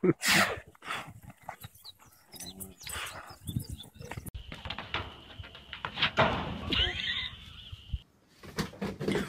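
Cattle and goats moving about in a pasture, with many short knocks and rustles and one brief animal call about two and a half seconds in.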